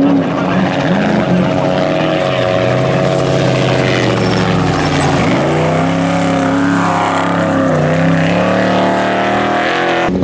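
Trophy truck race engine revving hard as the truck launches and speeds past. Its pitch climbs and dips with throttle, drops steeply about five seconds in, then rises again.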